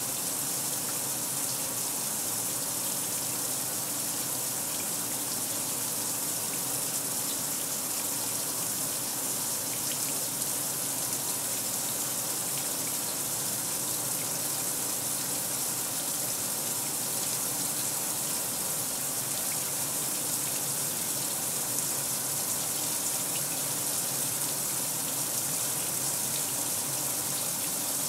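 Kenmore 800 Series washer filling: a steady rush of water pouring into the tub.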